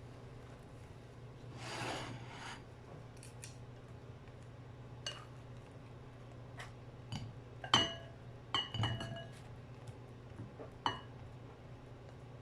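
Dishes and glassware clinking and tapping as things are handled in a kitchen: a soft rustling swish early, then scattered light knocks, the loudest a ringing clink a little past the middle, followed by a few more. A steady low hum runs underneath.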